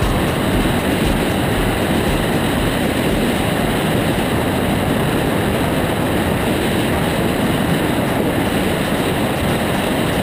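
Steady rush of wind over a wing-mounted camera on an Aeroprakt A22 Foxbat light plane in cruising flight, with the engine and propeller running underneath.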